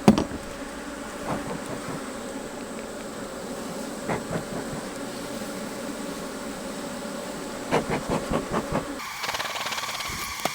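Swarm of honey bees from an opened hive buzzing in a steady drone, the sound of an agitated colony with many bees in the air. A few wooden knocks of hive boxes and frames being handled cut through, with a cluster of them near the end.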